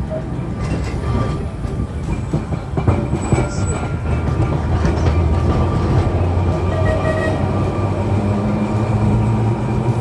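Open-top boat tram running along the street rails: the traction motors hum steadily over wheel and track noise, with a few clicks about three seconds in. The motor hum rises in pitch near the end.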